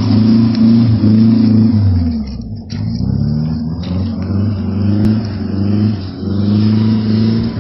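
A motor vehicle's engine running loudly and steadily. Its pitch sags about two seconds in, then picks back up and holds steady again.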